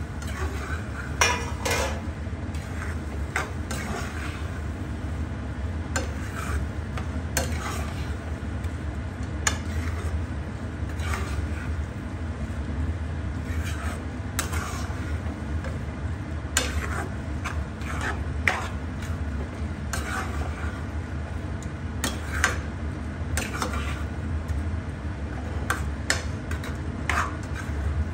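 A spoon stirring and scraping a thick vegetable masala around a nonstick kadhai, with irregular scrapes and light clinks against the pan, over a steady low hum.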